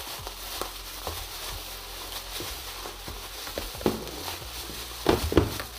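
Bubble wrap being handled and unrolled by hand: plastic crinkling with scattered small crackles, and a louder cluster of crackles about five seconds in.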